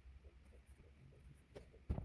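Faint pen-on-paper writing and desk handling sounds in a small room, with two soft taps near the end.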